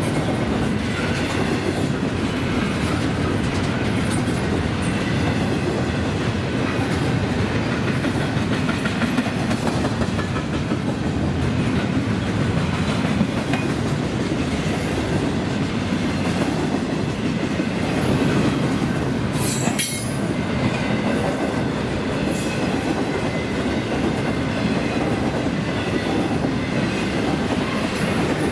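Double-stack intermodal container train rolling past: a steady rumble of well-car wheels on the rails with clickety-clack. There is one brief sharp, high-pitched sound about two-thirds of the way through.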